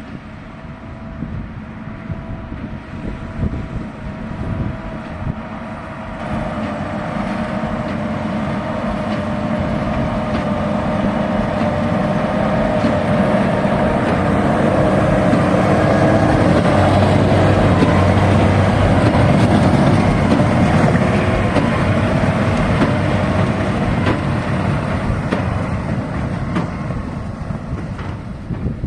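Case tractor of about 240 horsepower and a New Holland 1290 Plus big baler working through barley straw, the engine running steadily under load with a steady whine. It grows louder as the outfit comes close, is loudest a little past the middle, then fades slightly.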